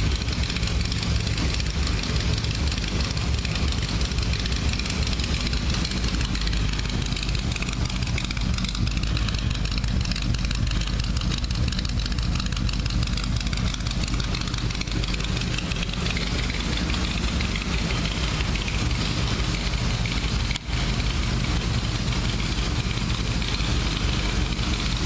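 Corvette Stingray V8 idling steadily through a custom exhaust, with a brief break about twenty seconds in.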